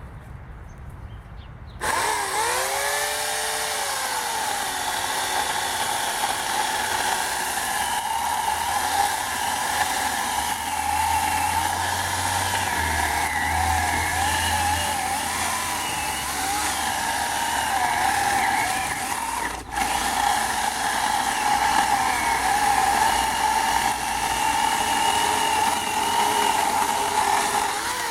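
Portland 14-inch electric chainsaw starting up about two seconds in with a rising whine, then running steadily while cutting apple wood, its pitch wavering under load; it begins to wind down at the very end.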